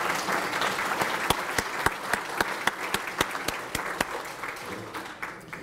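Audience applauding. The applause thins to a few scattered single claps and dies away near the end.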